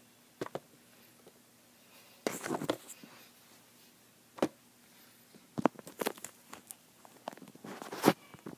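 Hands handling a small die-cast model airplane and its packaging: scattered light clicks, taps and rustles a second or two apart, with quiet room tone between.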